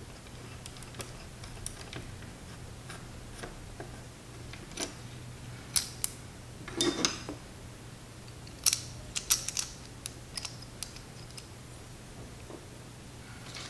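Scattered sharp clicks and light clinks of hand tools and small metal hardware, such as pliers, screws and washers, handled while screwing the arms onto a carbon-fiber drone frame. There is a short burst of clatter about halfway through and a few loud clicks soon after, over a faint steady hum.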